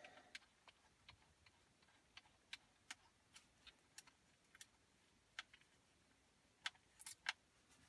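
Faint, irregular small clicks and ticks of a small screwdriver turning Torx T8 screws out of the screen unit's metal mounting bracket, a few clicks a second.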